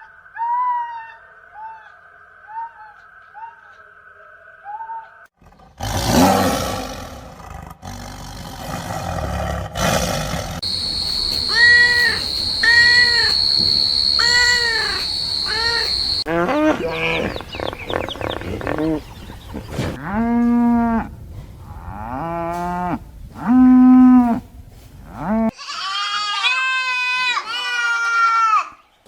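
A series of different farm and wild animal calls, one after another, changing every few seconds. There are short repeated pitched calls, a stretch of loud rough noise, evenly spaced arching calls, and several deeper and higher drawn-out cries.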